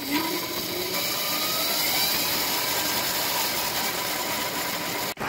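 Homemade e-bike's brushed DC motor, overvolted from 24 to 36 volts, running and spinning the front wheel through its chain drive: a steady motor whine with chain and sprocket whir, with faint tones rising in pitch in the first couple of seconds. It cuts off abruptly near the end.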